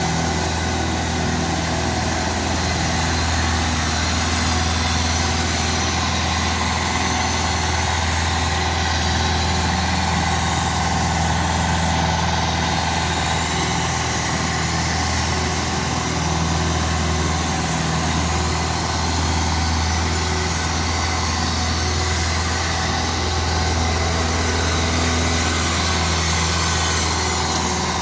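Compact tractor engine running steadily at low speed as the tractor drives an ice-resurfacing unit across the rink, with a constant low hum.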